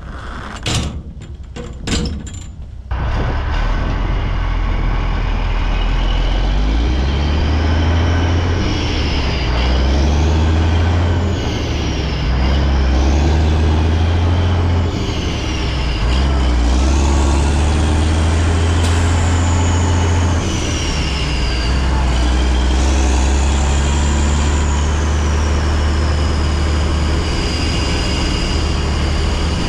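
A few sharp knocks, then a loaded semi truck pulling away and shifting up through its gears. The engine's pitch climbs and drops back at each shift, several times over.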